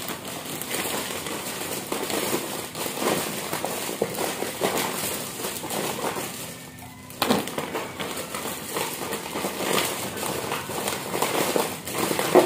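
Plastic snack packets and a thin clear plastic party bag crinkling and rustling as snacks are packed into the bag by hand, with a short lull about seven seconds in.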